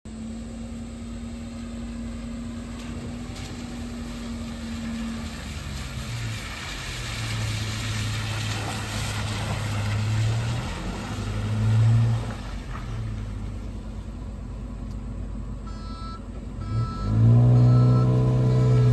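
A 2005 Ford Ranger pickup's 2.3 L four-cylinder engine running as the truck is driven, its drone shifting in pitch and rising and falling in level. Near the end a reversing beeper starts repeating and a louder, deeper engine drone comes in.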